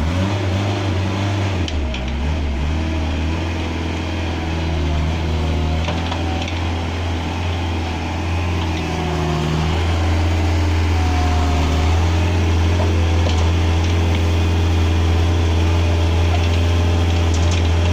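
JCB mini backhoe loader's diesel engine running steadily under load while the machine works a gravel pile with its front bucket, getting somewhat louder about ten seconds in.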